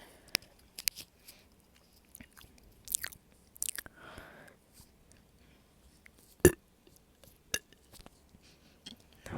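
Close-miked mouth noises between soda burps: scattered wet clicks and lip smacks, a soft breath about four seconds in, and one sharper click about six and a half seconds in.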